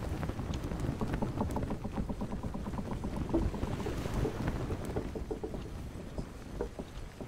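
Boat underway on open water, with water splashing and slapping against the hull in quick irregular knocks over a low rumble.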